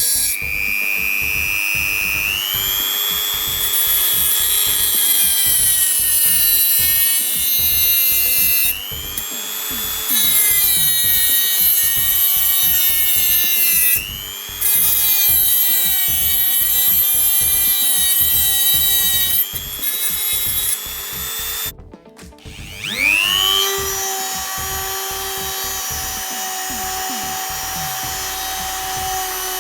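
Makute DG002 mini die grinder motor running with a high whine. Its pitch sags and recovers several times, it stops about 22 seconds in, then spins back up with a rising whine to steady speed.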